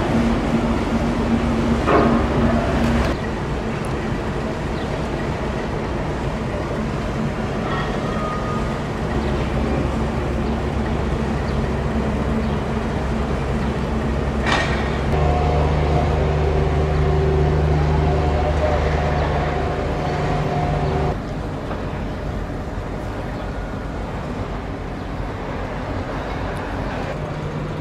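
Outdoor machinery noise from idling engines, a steady low hum. A louder engine tone joins about halfway through and cuts off suddenly a few seconds later, and there are two sharp knocks.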